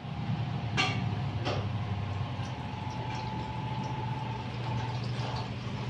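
Water pouring in a thin stream from a plastic pitcher into an empty stainless steel cooking pot, splashing steadily as the pot fills.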